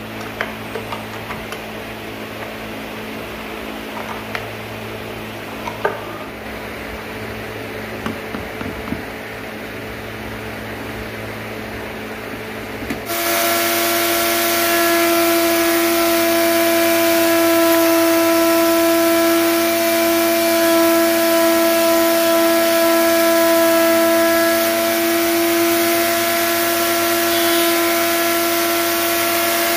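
Electric router running at full speed: a loud, steady high-pitched whine with hiss that cuts in abruptly about 13 seconds in. Before it, small clicks and taps of the router's mounting bolts being handled, over a low steady hum.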